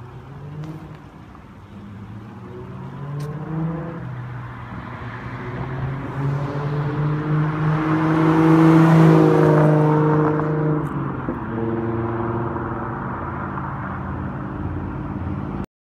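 Supercharged 3.0-litre V6 of a 2014 Audi S4 with an AWE Touring exhaust, accelerating hard past: the exhaust note climbs in pitch and grows louder to a peak about nine seconds in. The pitch drops about ten seconds in, the note carries on as the car pulls away, and it cuts off abruptly near the end.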